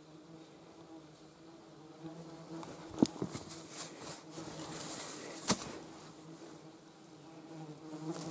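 A flying insect buzzing steadily, with two sharp knocks about three and five and a half seconds in as a small pick strikes the stony soil; the first knock is the louder.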